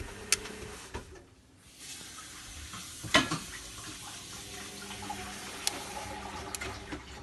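Zanussi Lindo 100 washing machine filling with water at the start of its cottons 40 cycle: a steady rush of incoming water with a hum under it. The flow drops away briefly about a second and a half in, with a sharp click near the start and a louder knock about three seconds in.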